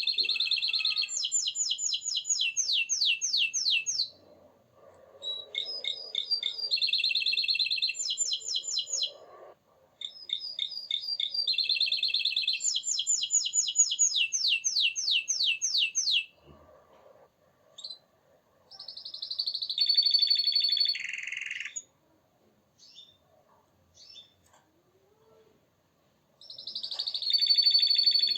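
Domestic canary singing: long phrases of fast repeated trilled notes, three of several seconds each with brief pauses between, then after a quieter stretch two shorter phrases later on.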